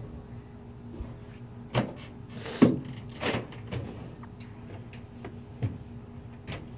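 A handful of short, sharp clicks and knocks, the strongest about two and a half seconds in, over a steady low hum.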